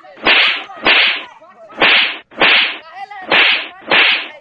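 A dubbed cartoon-style beating sound effect: six loud, swishing smacks in three pairs, the two of each pair about half a second apart.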